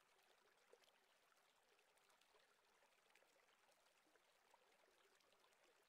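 Near silence: the sound track drops out almost completely.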